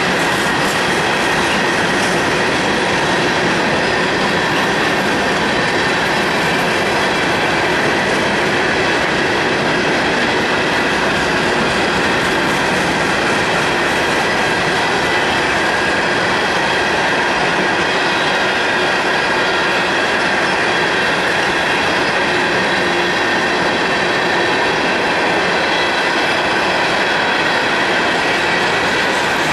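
Coal train's open-top hopper cars rolling past: a loud, steady rush of steel wheels on rail, with a thin high tone running through it.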